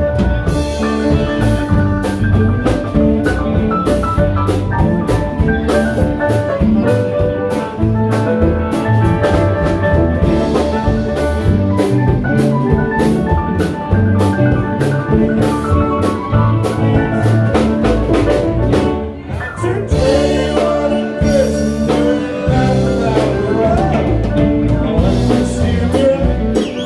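Live band playing music with a regular drum beat and a short dip in volume about two-thirds of the way through.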